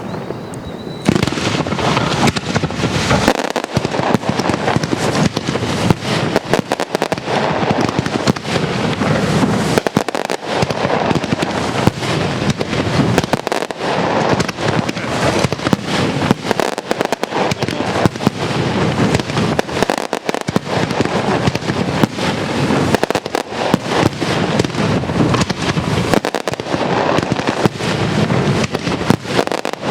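Castillo fireworks display: a dense, continuous barrage of rapid bangs that starts suddenly about a second in.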